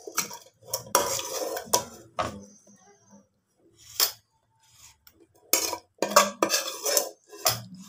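A metal spoon clinking and scraping against a metal pot and dish as chicken curry is spooned out and spread over a layer of rice. There is a run of strokes near the start, a single clink about four seconds in, and another run in the second half.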